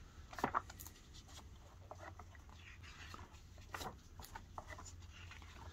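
Pages of a large glossy rulebook being turned by hand: scattered soft paper rustles and light taps, the loudest about half a second in and again near four seconds in.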